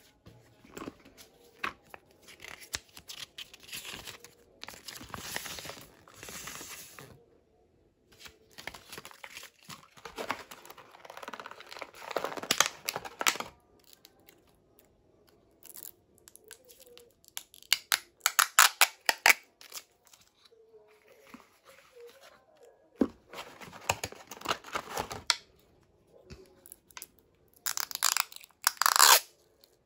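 Wireless-microphone packaging and a fabric pouch being handled: irregular bursts of rustling, with denser crackling clusters around the middle and the loudest one near the end.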